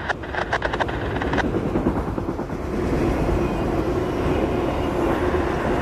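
CSX freight train of autorack cars rolling past close by: a steady rumble of steel wheels on the rails, with a rapid run of clicks over the first second and a half and a faint steady hum joining from about two and a half seconds in.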